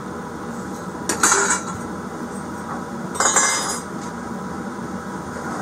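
Metal exhaust pipe and fittings clinking and rattling as they are handled, in two short spells about two seconds apart, over a steady background hum.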